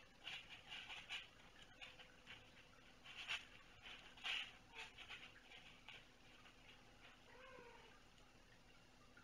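Faint sounds of kittens at play: a few short scratchy scuffles in the first half, then one brief soft mew about seven and a half seconds in.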